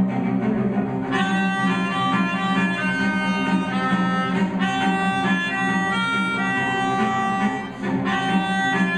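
Melodica and cello playing together live: the cello bows sustained low notes while the melodica plays a quick run of short, shifting notes above it from about a second in, with a brief break in the line near the end.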